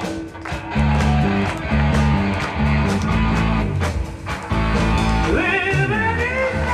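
Live rock band playing: electric guitars and bass over steady drum hits, with a higher wavering melody line coming in about five seconds in.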